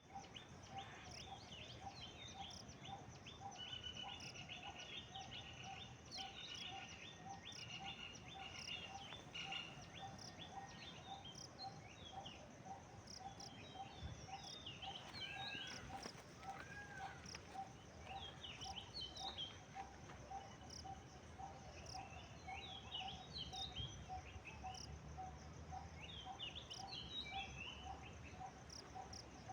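Common myna calling: a varied run of chirps, whistled notes and buzzy trills, mixed with other bird calls, over a steady low note repeated about twice a second.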